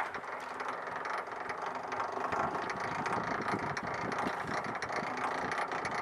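Centrifugal honey extractor spinning honeycomb frames, its gear drive and drum giving a continuous rattling clatter that grows a little louder a couple of seconds in.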